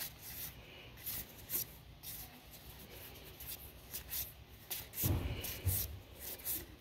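Magic: The Gathering cards being slid one by one across each other from a hand-held pack, a string of short papery swishes and rubs. About five seconds in there is a soft low bump, the loudest moment.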